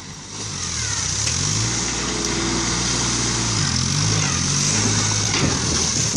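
Compact tractor engine running under load, its pitch rising about a second and a half in, dipping near four seconds and climbing again as the loader pushes through an above-ground pool wall. Water gushes out over a steady hiss.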